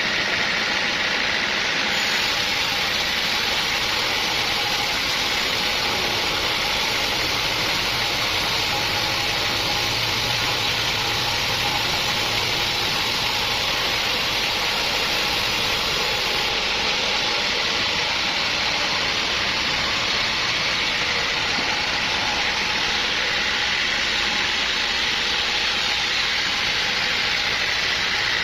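Sawmill machinery running steadily, with an added high hiss from about 2 to 16 seconds in.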